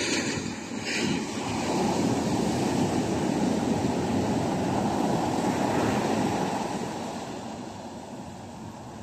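Surf breaking and washing up the beach, mixed with wind on the microphone: a rushing noise that swells over the first two seconds, holds, then fades after about six seconds. Two short handling knocks come right at the start and about a second in.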